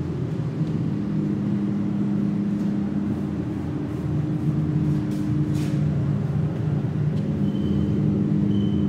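Steady low mechanical hum of body-shop machinery, holding a few constant low tones, with a brief hiss about halfway through.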